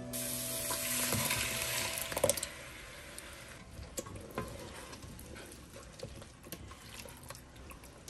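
A loud hiss of hot pasta water draining in a sink for about two seconds. Then, after a knock, a plastic slotted spoon stirs ground beef and tomato sauce in an enamel pot, with light scrapes and clicks.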